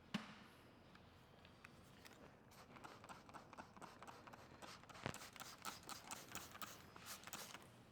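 Near silence broken by a run of faint, irregular ticks and crackles, from the paint protection film being peeled and handled on the car's trunk. The ticks start a couple of seconds in, with one sharper click in the middle.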